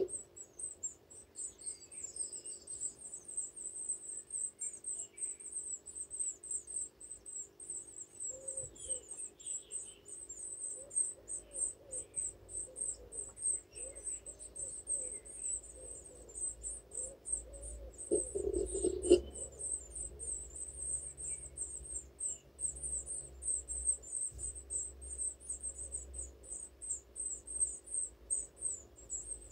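Great tit nestlings begging: a rapid, unbroken string of thin, high-pitched cheeps, several a second, as the chicks gape for food. A louder rustling bump comes about two-thirds of the way through, over a steady low hum.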